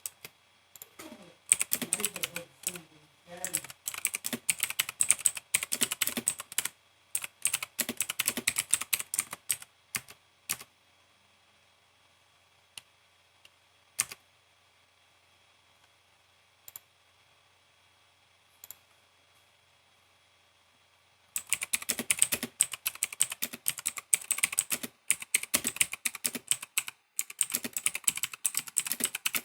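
Typing in normal use on a Motospeed GK89 mechanical keyboard with clicky Outemu Blue switches: fast runs of sharp key clicks. About ten seconds in, the typing stops for around ten seconds, leaving only a few single key presses, then steady typing starts again.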